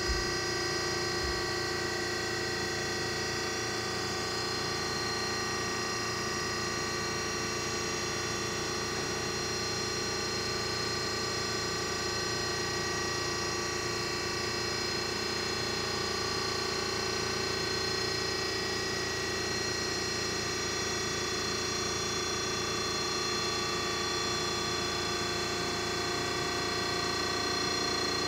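Klaus Multiparking G63 car stacker's electro-hydraulic drive running steadily as it lifts both parking platforms, a constant motor-and-pump hum with several fixed tones.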